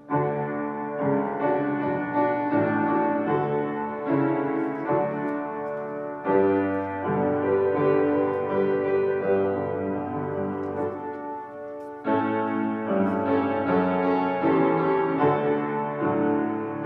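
Church postlude played on piano: slow, sustained chords, with a new chord struck loudly about six seconds in and again about twelve seconds in.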